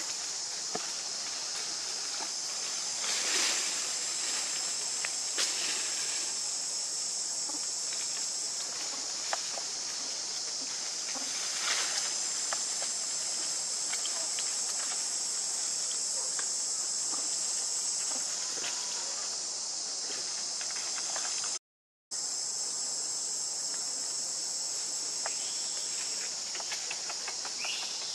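A steady, high-pitched drone of insects in the forest canopy, swelling and easing in strength, with a few faint clicks and rustles of branches scattered through it. The sound cuts out completely for a moment about two-thirds of the way through.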